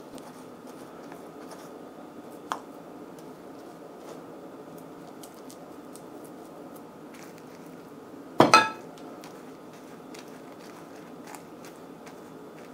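Kitchen handling sounds over a steady low hum: a sharp tap about two and a half seconds in, then one loud clink of dishware with a short ring about eight and a half seconds in, and faint small clicks between.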